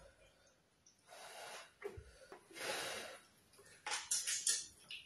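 A person eating by hand: two long, noisy breaths about a second and two and a half seconds in, then a quick run of wet mouth clicks and smacks near the end as a mouthful of soup-coated food goes in.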